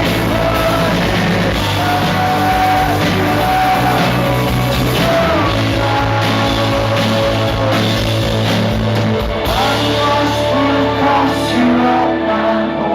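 Live rock band playing, with singing over guitars and drums. About two-thirds of the way through, the deepest bass drops away while the rest of the band keeps playing.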